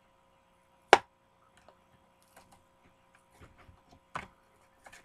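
Plastic blister package of a Hot Wheels die-cast car being worked open by hand: one sharp snap about a second in, then scattered small plastic clicks and crackles.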